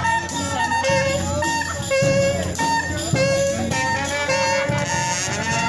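Brass band playing a jazzy tune live: horns sounding held, repeated notes over a bass line that pulses about once a second.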